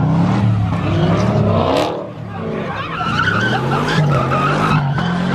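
Car engines revving up and down as the tyres spin and screech through a burnout donut. The rear tyres are smoking.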